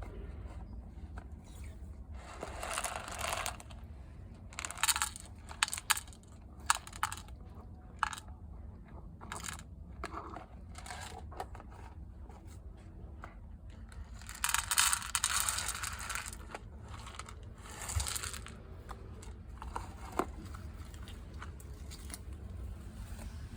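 A cat eating, crunching its food in irregular bursts of chewing with short pauses between.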